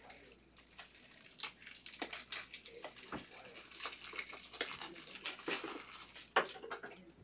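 Plastic packaging crinkling and tearing in a dense run of irregular crackles as a trading card box or pack is opened.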